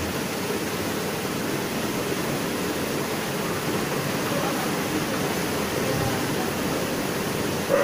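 Steady, even hiss of noise with no speech.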